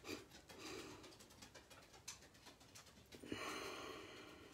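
Faint breathing of a 'bunny breath' exercise: quick sniffs in through the nose, then a longer, louder breath out about three seconds in.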